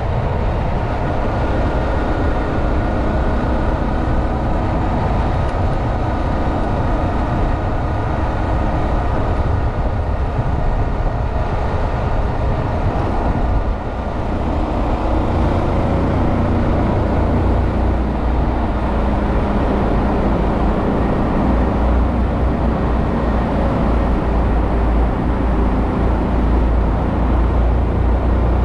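Honda Monkey 125's single-cylinder four-stroke engine running steadily under way, mixed with wind noise on the microphone. The level dips briefly about halfway through, then the low rumble comes back heavier.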